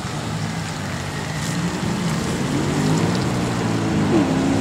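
Mercedes-Benz car engine running at low revs, its pitch and loudness climbing gradually through the second half, with a short blip of revs near the end.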